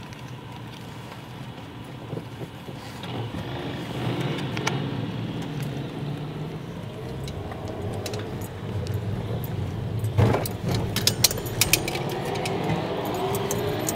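Sport motorcycle engines running and pulling away, heard through the glass from inside a following car along with the car's own engine; the drone grows louder after a few seconds. About ten seconds in comes a knock, then a run of sharp rattling clicks, and near the end an engine climbs in pitch as it accelerates.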